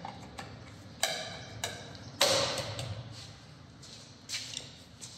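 A few sharp metallic clicks and knocks from hands and parts at a car's front wheel. The loudest comes about two seconds in and rings briefly. A few light footsteps on a concrete floor follow near the end.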